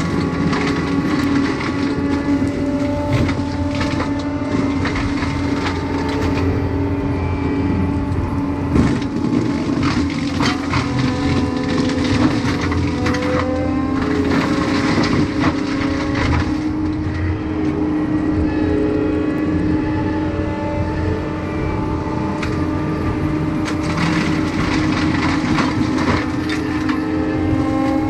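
Prinoth M450s-1600 forestry mulcher on a compact track loader running at working speed, a steady machine drone, with repeated cracks and snaps as the drum grinds through brush and wood.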